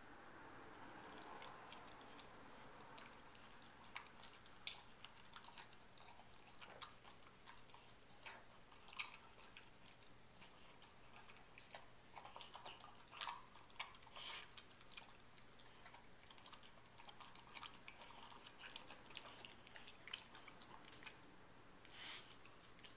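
A dog eating small pieces of food from a stainless steel bowl: faint, irregular chewing and licking with scattered small clicks throughout.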